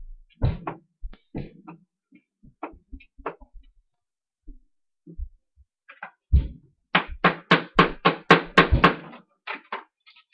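Scattered knocks and clicks of small toy parts being handled and set down on a table, then a quick run of louder knocks, about five a second, for a couple of seconds past the middle, as if a piece is tapped repeatedly on the tabletop.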